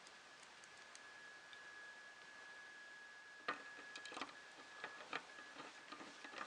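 Small metal printer-kit parts and bolts being handled and fitted: a few irregular sharp clicks from about halfway through, over a faint steady high whine.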